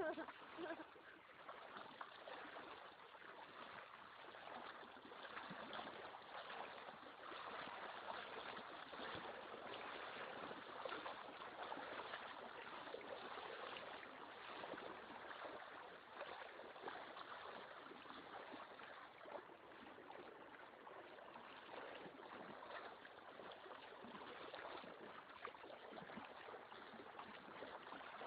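Small waterfall pouring into a blackwater river: a faint, steady trickling and splashing of falling water.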